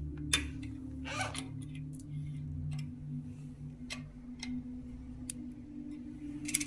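A thin plastic strip is handled at a bicycle's front disc brake caliper, giving a few light clicks and a short rustle over steady background music.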